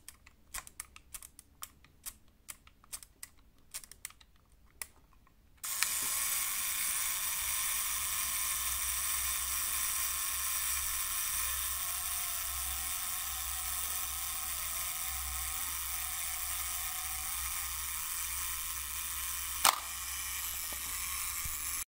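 Zenit 122 SLR's mechanical self-timer. First comes a run of small mechanical clicks for about five seconds. Then the clockwork starts buzzing steadily for about fourteen seconds. A loud sharp click of the shutter firing comes near the end, and the buzzing runs on for a moment after it.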